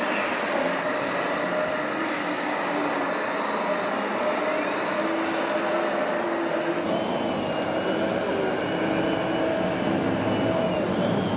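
Radio-controlled scale model trucks driving: the steady whine of small electric motors and gearboxes over a background of hall noise, the mix changing about seven seconds in.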